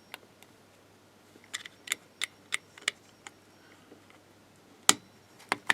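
Small sharp plastic clicks and taps as a 3D-printed OO-scale locomotive body is worked onto a Hornby model chassis: a quick run of about six clicks around two seconds in, then a louder click near the end and one more just after.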